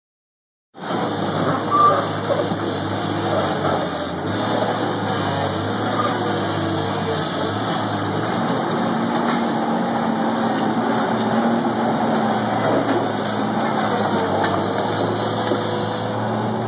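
Fiatallis skid-steer loader's engine running as it works a rubble pile, starting abruptly about a second in, with its note shifting up and down as the load changes.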